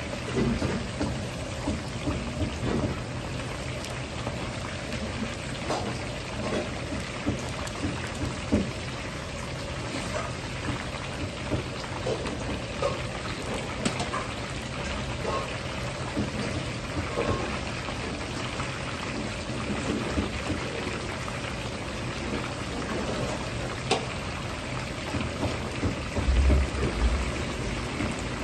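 Batter-coated chicken thigh pieces deep-frying in a large wok of hot oil: a dense, steady sizzle with crackles and scattered pops. A steady low hum runs underneath.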